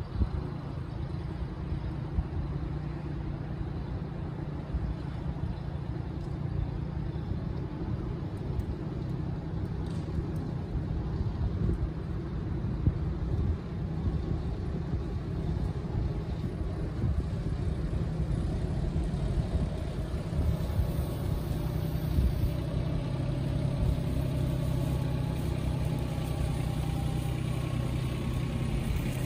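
Mahindra Max 26 compact tractor's diesel engine running steadily under way, growing louder over the second half as it drives closer.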